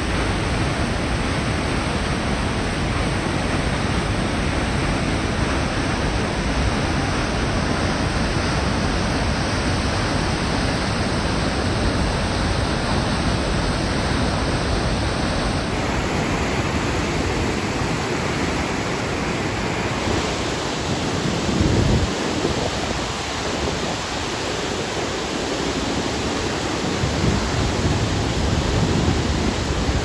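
River whitewater rushing over falls and around boulders, a steady, loud wash of water noise. About two-thirds of the way through, a brief low rumble rises above it.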